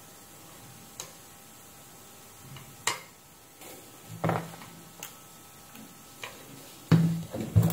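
Scattered light clicks and taps of tools and a circuit board handled on a workbench, roughly one a second, with two louder knocks near the end.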